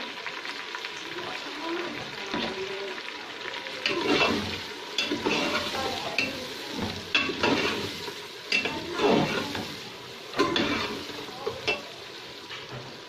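Chicken pieces, onions and spices sizzling in hot oil in a pressure cooker pot while a metal ladle stirs them, scraping the pot in repeated strokes about every second, which come more often from about four seconds in. This is the bhuna stage, browning the chicken in the masala.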